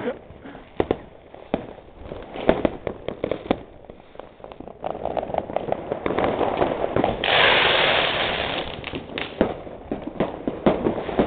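New Year's fireworks going off all around: irregular bangs of firecrackers and rockets, some sharp and close, others fainter and distant. A loud hiss rises a little past halfway, lasts about two seconds and fades.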